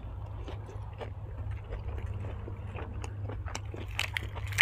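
A person chewing food close to the microphone: a run of small wet clicks and smacks, sharper and louder near the end, over a steady low hum.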